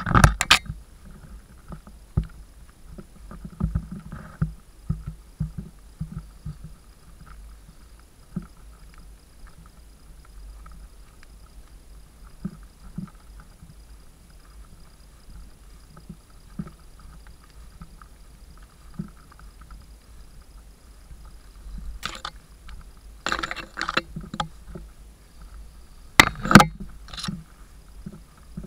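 Wind rumbling on the camera microphone, with irregular knocks, clicks and rustles from the camera being handled and brushed by tall grass; a louder cluster of knocks comes near the end.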